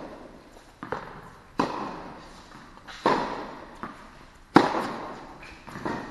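Tennis rally: crisp racket-on-ball hits and ball bounces, each ringing on in the echo of a large indoor hall, a loud hit about every second and a half, the loudest about four and a half seconds in.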